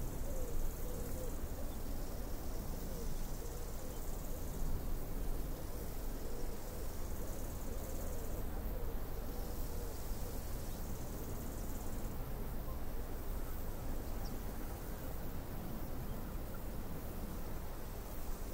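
Steady low rumble of ocean surf breaking and washing, mixed with wind. A faint high hiss cuts in and out several times.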